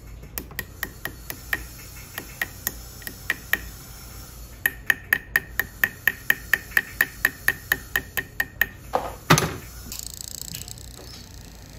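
A jeweller's stone-setting tool tapping on a gold pendant during micro-pavé diamond setting: sharp metallic ticks, each with a short high ring. They come unevenly at first, then settle into a steady run of about four a second. A single louder, duller knock follows near the end.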